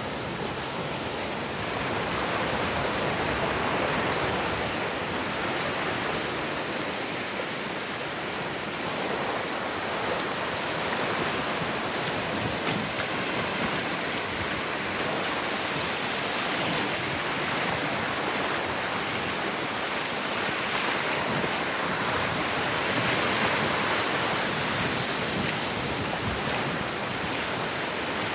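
Sea surf washing onto a sandy beach: a steady rushing wash that swells and eases every several seconds.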